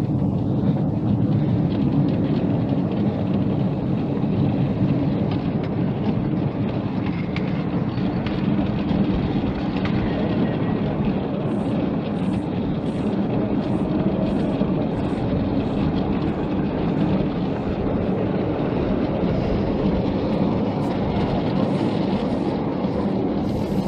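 Miniature railway train running along the track, a steady low rumble of wheels and carriages heard from aboard. From about halfway there is a light, regular clicking, a little under two a second.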